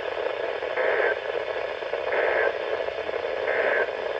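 Static from a radio receiver: a steady band-limited hiss with three short, higher-pitched bursts at even intervals about 1.4 seconds apart.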